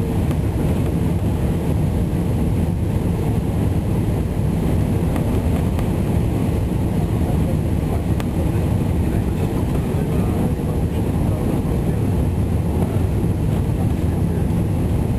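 Airbus A320 cabin noise on final approach: the engines and the airflow over the airframe make a steady low rush at a constant level, with no sudden knocks or changes.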